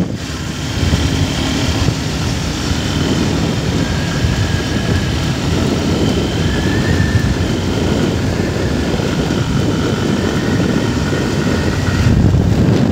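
Hero Xtreme 160R's single-cylinder engine running at a steady cruise of about 68 km/h, with wind rushing over the microphone.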